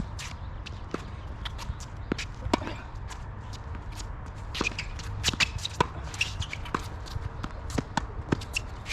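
Tennis being played: sharp ball strikes and bounces at an irregular pace amid players' footsteps and shoe scuffs on the court, over a low steady rumble.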